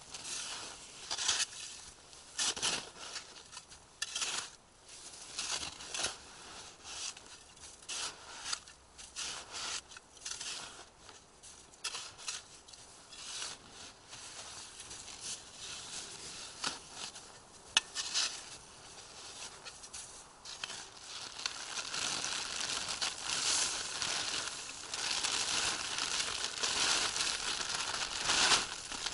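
Fiskars snow shovel scraping and scooping packed snow in repeated short strokes. From about two-thirds of the way in, a plastic tarp rustles and crinkles steadily as it is pulled and spread.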